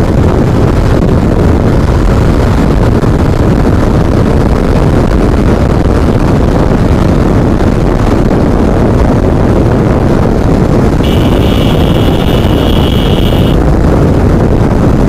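Motorcycle running steadily at road speed, heard as loud, even wind noise on the camera microphone over the engine and tyres. A steady high-pitched tone sounds for about two and a half seconds near the end.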